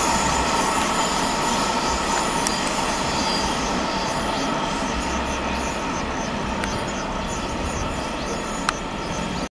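Loaded coal wagons of a freight train rolling away over the rails, wheels keeping up a steady squeal over the rumble, slowly fading, with one sharp click near the end.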